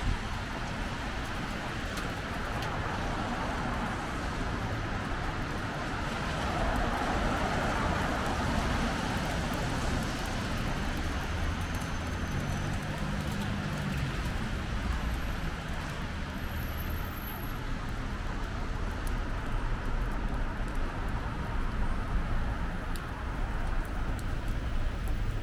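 Street traffic on wet asphalt: a steady hiss of cars passing, one swelling past about a quarter of the way through, with a brief engine hum about halfway.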